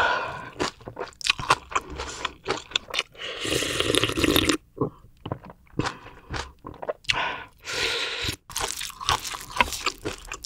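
Close-miked eating: crisp, crunchy chewing of crunchy vegetables, many sharp crunches in a row, with a longer noisy stretch about three to four seconds in.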